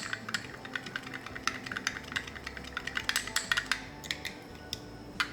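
Stir stick clicking and tapping against the sides of a cup, several irregular taps a second, while liquid plastisol with black pigment is being mixed.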